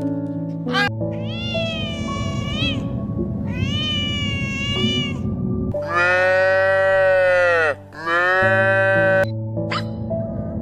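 A domestic cat meowing four times over background music. The first two meows are shorter and softer. The last two are louder and drawn out, each dropping in pitch as it ends.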